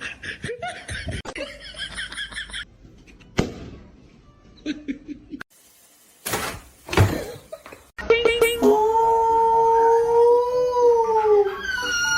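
Short pet clips cut together. The loudest is an animal's long, drawn-out howl starting about two-thirds of the way in, its pitch slowly rising and then falling. Another howl slides downward near the end.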